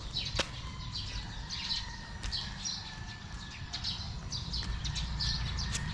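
Small birds chirping over and over, short high chirps about twice a second, over a steady low rumble.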